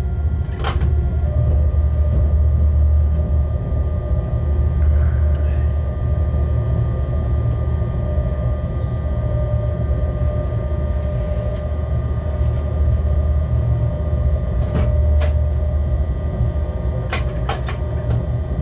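Locomotive moving slowly, heard from inside its cab: a steady low rumble with a constant whine from its running gear and equipment, and a few sharp clicks, two in quick pairs near the end.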